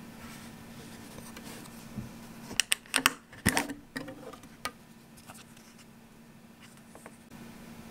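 Clear plastic snap-on lid being pulled off a small fruit tin: a quick run of sharp plastic clicks and snaps over about a second, followed by a few lighter taps, over a steady low hum.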